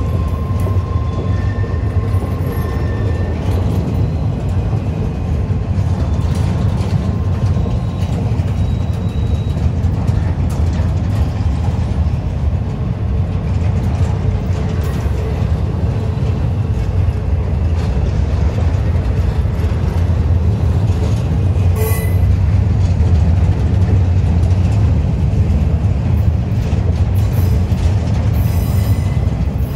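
Pan Am Railways freight train rolling slowly up a grade, a steady low rumble that grows a little louder past the middle, with one sharp metallic click about two-thirds of the way through.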